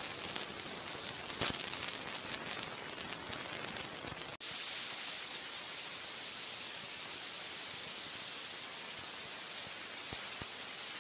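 Steady hiss of recording noise with faint crackling. About four seconds in, the sound drops out for a moment and then returns as a smoother, brighter hiss.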